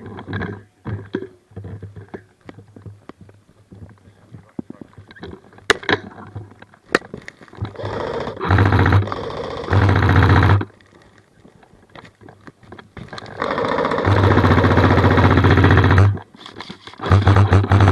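Airsoft rifle firing long full-auto bursts, a rapid even rattle of shots over a motor whir; two bursts of a couple of seconds each about halfway through, and another near the end, after a few scattered single clicks.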